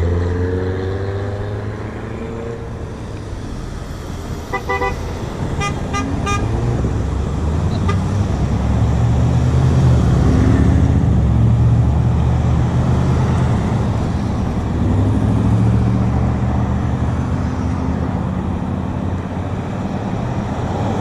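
Road traffic passing steadily, with a car horn giving several short toots about five to six seconds in.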